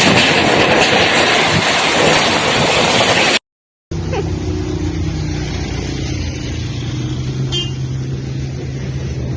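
Heavy rain and gusting wind make a loud, even roar. After about three and a half seconds a cut leads into a steady, low mechanical hum, like a motor or engine running, with the storm noise much fainter behind it.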